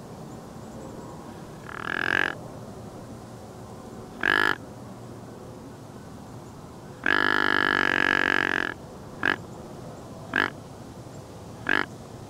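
Deer grunt call blown in a series of buzzy grunts imitating a whitetail buck: two short grunts, one long drawn-out grunt about halfway through, then three quick short ones.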